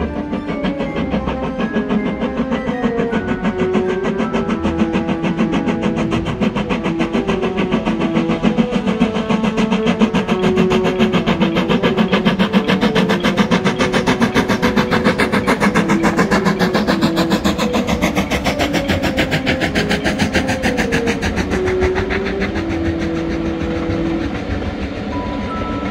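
Background music: a slow melody of held notes over a fast, even strumming pulse.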